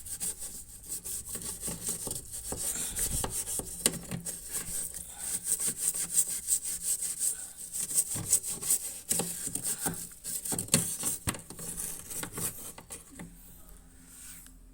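Old toothbrush scrubbing washing-machine drain valve parts with detergent: quick back-and-forth brushing strokes, easing off near the end.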